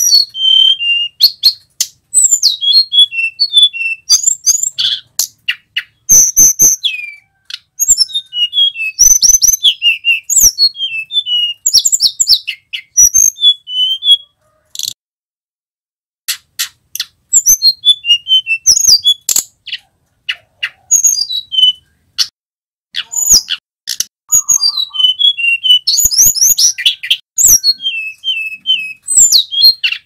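Male hill blue flycatcher (tledekan gunung) singing: bursts of rapid, high whistled warbling phrases with short pauses between them. There is a pause of about two seconds midway, and sharp clicks among the phrases.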